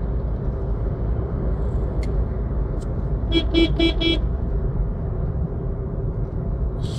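Car horn beeping four times in quick succession, over the steady rumble of tyres and engine of a car driving at highway speed.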